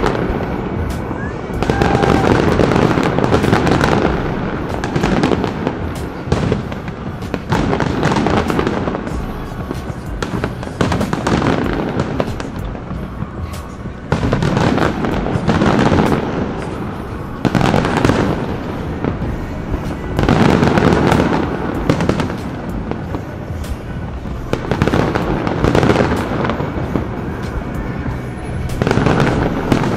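Aerial fireworks display: many bangs and crackles from bursting shells, in dense waves every couple of seconds.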